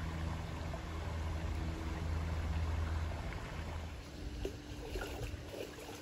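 River water flowing, under a steady low hum through the first few seconds. From about four seconds in, water splashes and sloshes around a person standing in the river.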